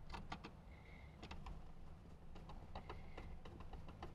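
Faint, scattered small clicks and metal ticks, in short clusters, from a hand screwdriver turning a screw into the head unit's metal mounting bracket to secure the screen finger tight.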